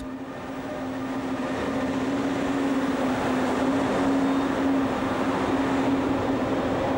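Siemens ES64 U2 electric locomotive hauling a passenger train past at low speed: a steady electrical hum over rolling noise that grows louder over the first couple of seconds, then holds.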